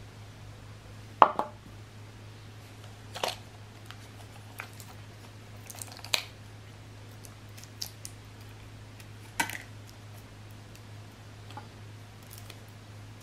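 Handling noises from a plastic drink bottle and spools of fishing line: a few sharp plastic clicks and knocks, the loudest about a second in and others near three, six and nine and a half seconds, over a faint steady low hum.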